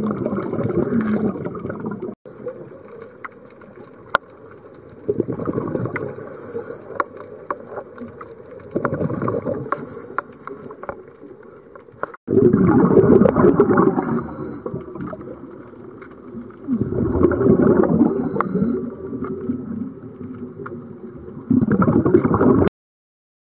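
Underwater recording of a diver breathing: bursts of exhaled bubbles about every four seconds, with a short hiss between them. The sound drops out for an instant twice and cuts off abruptly near the end.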